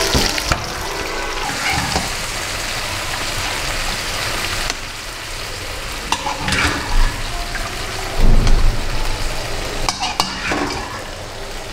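Food frying in hot oil in a nonstick frying pan over a gas flame, a steady sizzle, with a wooden spoon scraping and knocking against the pan a few times.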